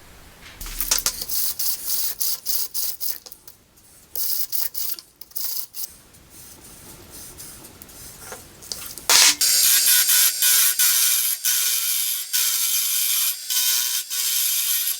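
Wood pen blank being worked on a spinning lathe: short bursts of scraping and sanding, then from about nine seconds in a louder, steady run with the lathe's motor hum under continuous rasping.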